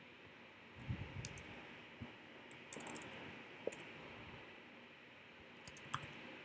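A few faint computer keyboard and mouse clicks in small scattered clusters over a low steady hiss, as text is cut and pasted in a form.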